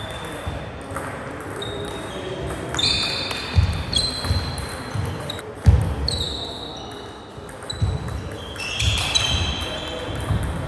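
Table tennis play: the ball clicking off bats and table, with footsteps thudding on the wooden floor and short high shoe squeaks.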